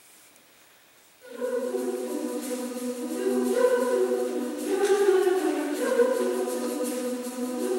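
Women's choir singing in several parts, entering together about a second in after a brief hush.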